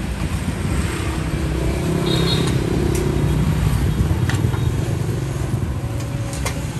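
Street traffic with motorbikes running past makes a steady low rumble. Under it is the even hiss of dough cakes frying in hot oil, and a few light clicks.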